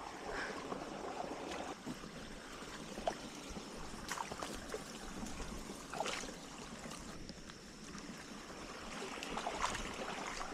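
Creek water running steadily, the creek high, with a few brief sharp sounds scattered through.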